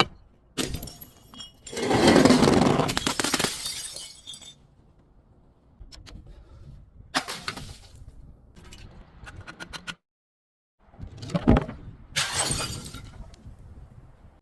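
Glass bottles being smashed: several separate shattering crashes, the longest and loudest about two seconds in, another around twelve seconds in just after a low thud, with smaller clinks of glass between.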